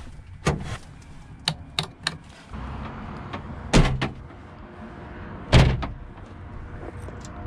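Ford E250 van doors being worked: a few sharp latch and handle clicks, then two heavy door slams about two seconds apart.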